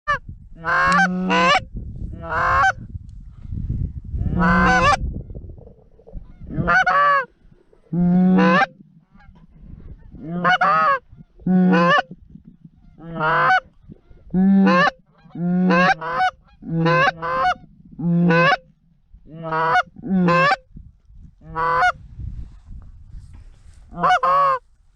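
Goose honks, one loud honk after another, roughly one a second and sometimes in quick pairs, each clear of the next rather than overlapping. A low rumble runs under the first several seconds.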